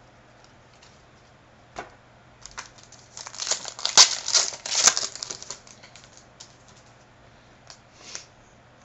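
Trading cards and their packaging being handled: a rapid run of crisp clicks and crinkles lasting about three seconds, loudest in the middle, with a few single clicks before and after.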